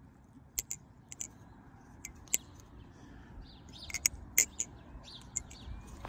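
Balisong (butterfly knife) being flipped: about ten sharp clicks of its handles and blade knocking together, irregularly spaced. Faint bird chirps are heard behind them.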